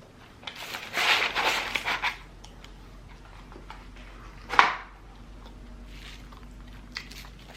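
Paper fast-food packaging rustling and crinkling for about a second, followed by quiet chewing. There is one short sharp sound about halfway through.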